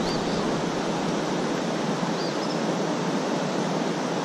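Steady rushing of stream water flowing over riffles.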